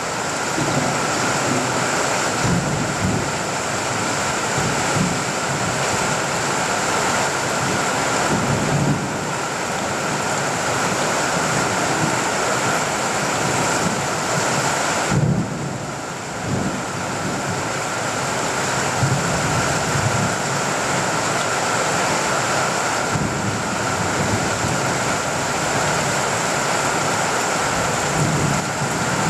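Heavy rain drumming steadily on a tin roof, with low rumbles of distant thunder coming and going.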